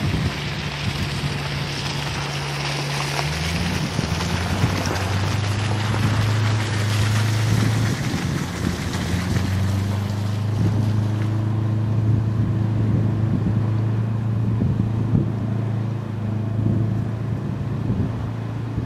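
Sidewinder boom boat's engine running hard as the boat works among floating logs, its pitch dropping about three seconds in and climbing again later. A rushing hiss of churned water and wind fades out about two-thirds of the way through.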